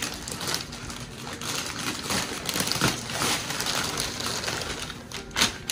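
Gift-wrapping paper rustling and crinkling in irregular bursts as presents are unwrapped.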